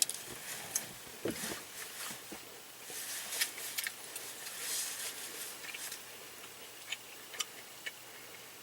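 Close-miked eating: chewing with scattered small mouth clicks and smacks, and a soft crackly stretch about midway.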